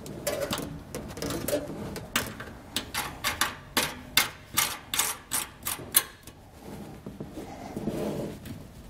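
A retainer being threaded by hand onto a carriage bolt through a steel truck frame rail: a run of sharp small clicks with handling and rubbing, the clicks thickest in the middle of the stretch.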